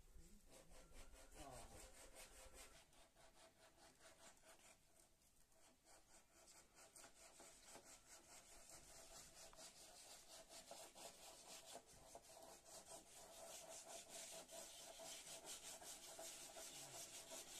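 Wooden sofa frame being sanded by hand: quick, even back-and-forth rubbing strokes over the wood panel. Faint, growing louder toward the end.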